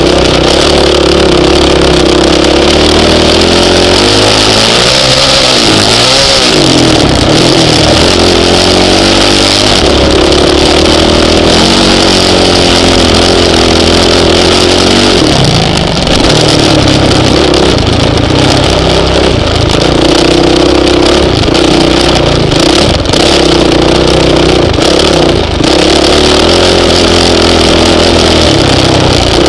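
Honda CRF450X single-cylinder four-stroke dirt bike engine being ridden hard, its pitch rising and falling with the throttle, with quick swoops up and down about five to seven seconds in.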